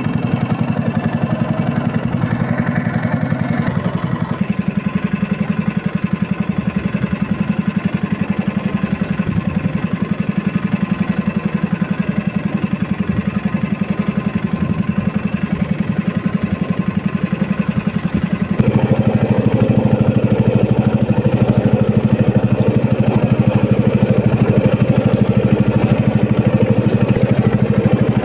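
Small fishing boat's engine running steadily, stepping up to a higher, louder throttle setting about two-thirds of the way through.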